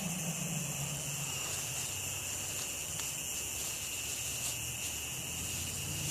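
Smashed but still powered television giving off strange noises from its damaged electronics: a steady high-pitched whine over a wavering low buzz.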